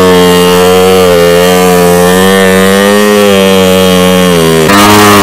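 Voskhod 3M motorcycle's two-stroke single-cylinder engine revving hard while the bike is stuck in mud, its note wavering slightly up and down. Near the end the note changes abruptly and gets louder.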